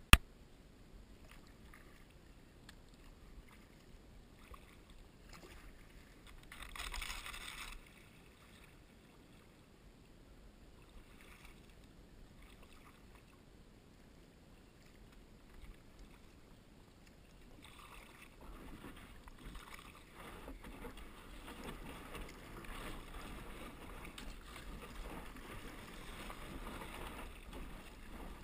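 Kayak paddle strokes dipping and splashing in a shallow creek, getting louder over the last ten seconds. There is a sharp click at the very start and a brief rush of noise, about a second long, about seven seconds in.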